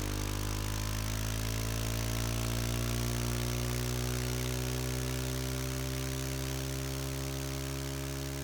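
Suzuki DR-Z400S's single-cylinder four-stroke engine running steadily, its pitch climbing slowly and evenly as engine speed rises.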